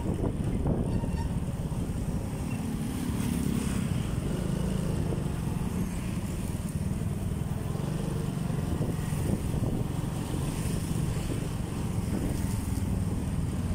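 Motorcycle engine running steadily while riding slowly in traffic, with road noise and wind on the microphone.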